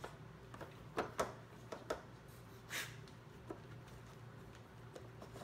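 Trixie Poker Box plastic treat-puzzle boxes knocked by a dog's nose and tongue: a few light, separate clicks and clacks, with a short sniff a little before the middle.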